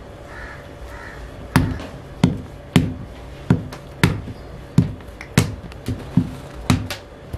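Hands slapping and patting a ball of bakarkhani dough flat on a wooden table. About ten sharp slaps come roughly every two-thirds of a second, starting about a second and a half in.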